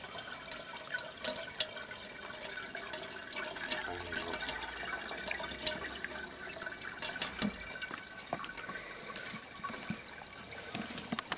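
Grape juice pouring in a steady stream from the spout of a wooden basket wine press onto a perforated metal strainer in an aluminium basin, trickling and splashing with many small drips.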